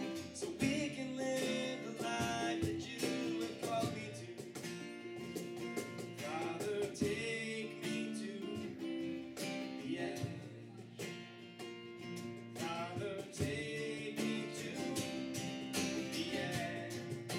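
Live acoustic band music: several acoustic guitars strumming and picking chords through a passage with no sung lyrics.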